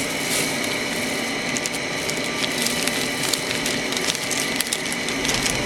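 Blind-box toy packaging being opened and handled by hand: a crinkling rustle with many small clicks and snaps.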